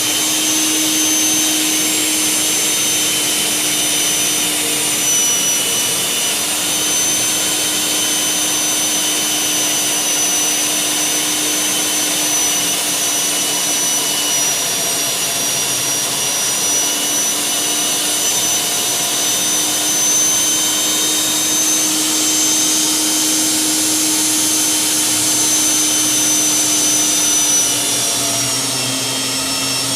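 Electric core drilling machine running steadily with a high motor whine as its 4-inch core bit cuts through a concrete roof slab; the pitch dips briefly near the end.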